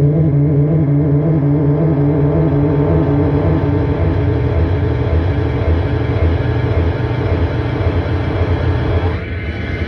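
Live noise music from a tabletop rig of effects pedals played through a PA: a loud, dense drone with a heavy low rumble and several steady tones layered over it. Near the end a high tone slides upward and then holds.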